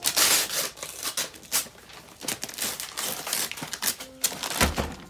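Christmas wrapping paper being ripped and crinkled by hand in quick, irregular tears. A dull thump comes near the end.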